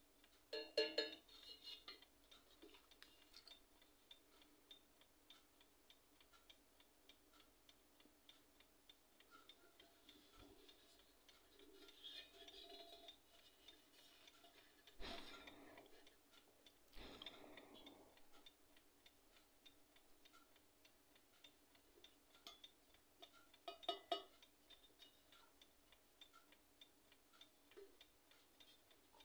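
Near silence with a faint, steady ticking throughout. A few faint knocks and rubs come from fingers handling an antique silver jewelry box, the clearest about a second in and another toward the end.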